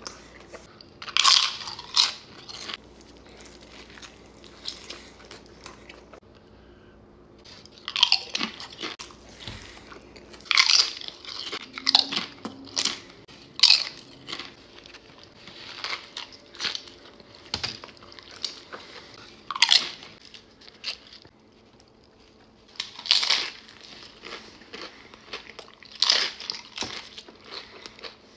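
A person biting into and chewing crunchy food, with loud, crisp crunches coming irregularly every one to three seconds and quieter chewing between them.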